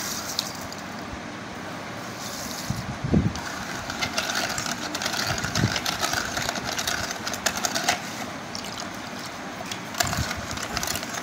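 Steel spoon stirring sugar into water in a plastic tub, with repeated small scrapes and clicks against the tub, over a steady background hum.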